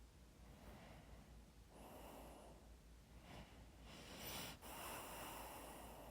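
Faint, slow breathing close to the microphone: a few soft breaths, the longest and loudest from about four seconds in. It is the drowsy breathing of someone dozing off.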